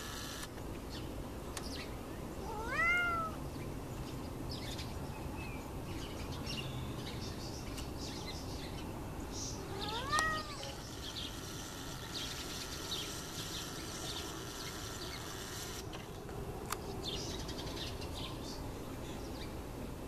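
A cat meows twice, about seven seconds apart, each call rising then falling in pitch, over a steady low background hiss.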